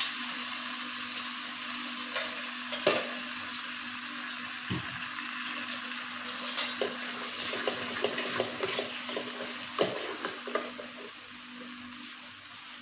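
Chili garlic sauce (garlic, chili paste and tomato sauce in oil) sizzling in a pan while a wooden spatula stirs and scrapes through it, with scattered light knocks of the spatula against the pan. A low steady hum runs underneath, and the sizzle quietens near the end.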